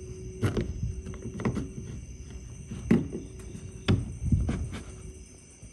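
Flat-blade screwdriver clicking and scraping against the metal release lever and plastic mechanism behind a Ford truck's exterior door handle, about five sharp clicks roughly a second apart. The lever is seized with rust and is being forced back toward the rear of the truck.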